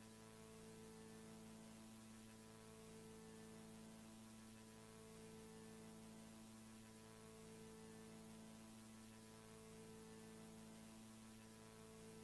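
Near silence with a faint electronic hum of several steady tones, some swelling and fading every few seconds.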